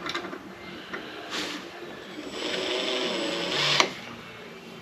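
Power drill running for about a second and a half in the middle, as it bores out a broken, badly rusted screw, ending in a sharp click. A shorter burst of the same noise comes a little earlier.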